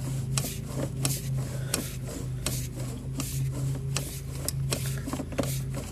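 Sewer inspection camera push cable being fed through cast iron drain pipe: irregular rubbing and scraping strokes, some sharp, several a second, over a steady low electrical hum from the camera equipment.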